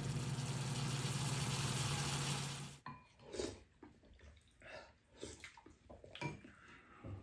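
Stir-fry sizzling in a frying pan over a steady low hum, cutting off abruptly about three seconds in. Then light clicks and clinks of chopsticks and spoons against ceramic bowls, with soft eating sounds.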